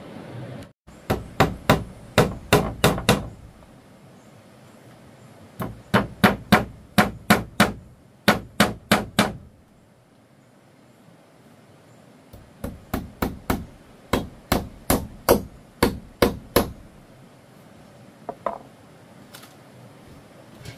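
Hammer blows in three quick runs of about eight to a dozen sharp strikes each, roughly three a second, with pauses between runs and a couple of lighter knocks near the end.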